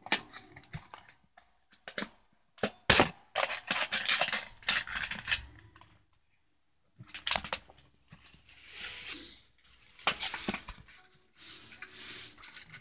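Handling noise as a fidget spinner is put back into its case: irregular clicks and clacks of the spinner and packaging, with a few sharp knocks and spells of rustling or scraping.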